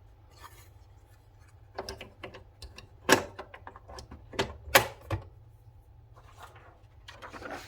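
Irregular clicks and clunks of a 1970 Citizen X3 manual typewriter being handled and put back together, with a few sharper knocks among them.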